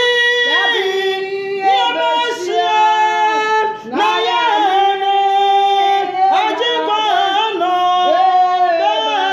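A woman singing a worship song with no instruments, in long held phrases that slide between notes.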